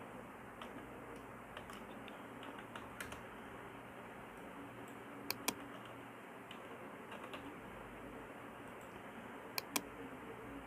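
Faint typing on a computer keyboard, with irregular key clicks. Two sharper mouse clicks come about halfway through, and two more near the end.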